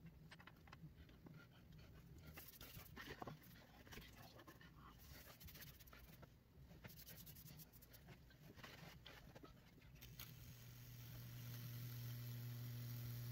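Faint scrapes and taps of a brush working liquid over a wet wooden board. About ten seconds in, a steady electrical hum starts and grows louder as the high-voltage transformer for Lichtenberg wood burning is powered up.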